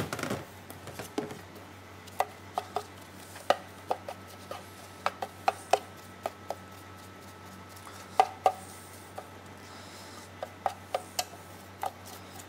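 Light, irregular clicks and taps of a pastry brush against a metal loaf tin as the tin is greased, over a faint steady low hum. A short rustle comes right at the start.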